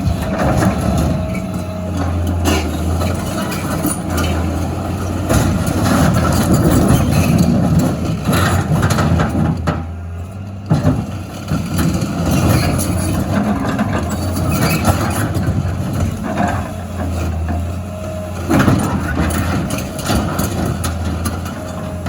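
A heavy diesel engine runs steadily under varying load, with scattered knocks and clatter over it.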